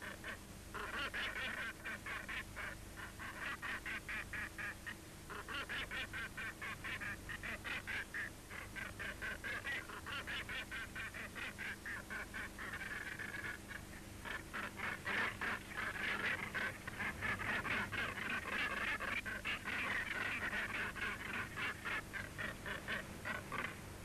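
Northern gannets calling in a harsh, rapid, grating chatter, several pulses a second in long runs with brief breaks: aggressive calls of a nesting pair fighting off its neighbours.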